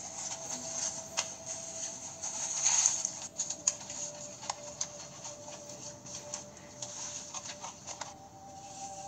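Scattered clicks and taps of mud and wooden poles being worked by hand, played back through a Nintendo Switch's small speaker. A thin steady tone runs underneath and steps up slightly in pitch near the end.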